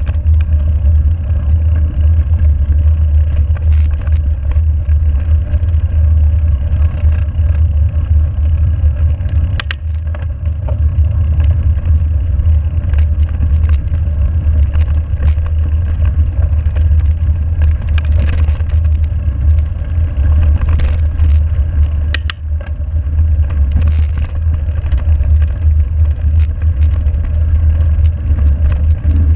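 Mountain bike riding along a snowy, wet gravel forest road, heard on a GoPro: a loud steady low rumble of wind and tyre noise, with scattered clicks and rattles from the bike and the gravel.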